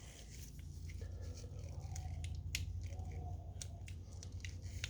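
Scattered small clicks and light scrapes of a Beretta 81 pistol's metal parts being handled and pushed together during reassembly, over a steady low hum.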